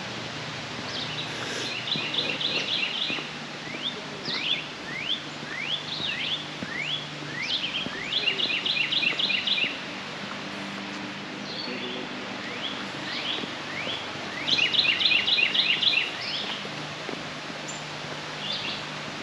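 Songbirds singing outdoors: three bursts of rapid repeated chirps, about two to three seconds in, around eight to ten seconds in and again near fifteen seconds, with single quick downward-sweeping notes between them. A steady low hum and a light background hiss run underneath.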